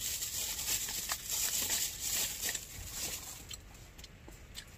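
Plastic bag and food wrapper crinkling and rustling as they are handled, dying down about three and a half seconds in.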